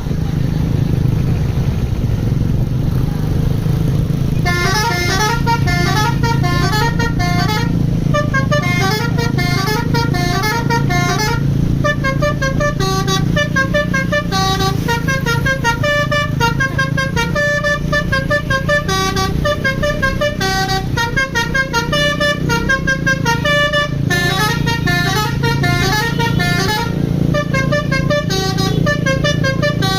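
Basuri telolet bus horn playing a tune in quick, stepped notes, starting about four seconds in and running on with short pauses, over the steady hum of the bus engine.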